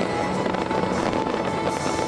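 Fireworks banging and crackling over music with long held notes.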